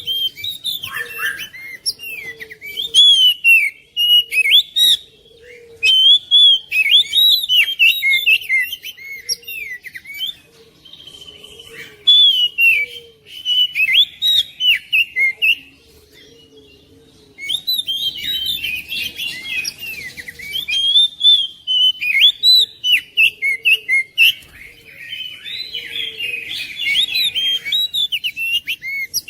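Oriental magpie-robin (kacer) singing: rapid strings of varied whistled and chattering notes that sweep up and down. The song breaks off twice, briefly about ten seconds in and for about two seconds in the middle, then resumes busier.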